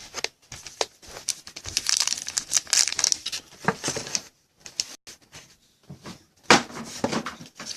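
Plastic packaging crinkling and tearing in irregular bursts, with a loud sharp snap about six and a half seconds in.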